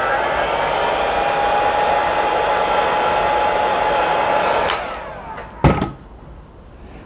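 Electric hot-air blower of the hair-dryer kind running steadily with a whine, drying freshly washed mouse parts, then switched off about five seconds in. A single sharp knock follows about a second later.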